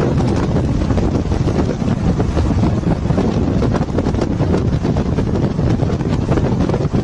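Wind buffeting a microphone in a moving vehicle, over a steady low rumble of road and engine noise.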